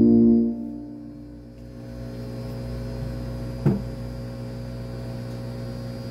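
Music stops about half a second in, leaving a steady electrical mains hum from the videoke sound system between songs. A single short knock comes about two-thirds of the way through.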